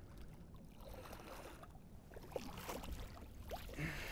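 Faint water sounds beside a boat as a striped bass is scooped into a landing net: lapping, with a few small splashes in the second half.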